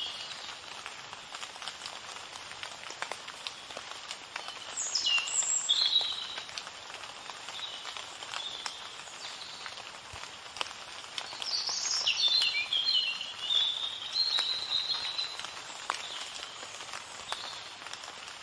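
A songbird singing short phrases of high, falling whistles and trills, loudest about five seconds in and again around twelve to fourteen seconds in, over a steady outdoor hiss.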